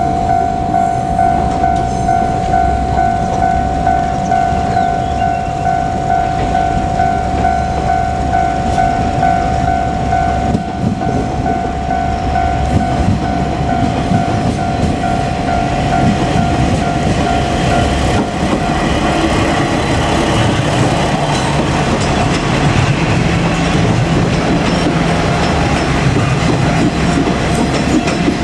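Level crossing warning bell ringing in a steady, rapidly repeating electronic ding. A KiHa 47 diesel railcar set comes up to the crossing, and its engine and wheel clatter grow louder through the second half, nearly drowning the bell.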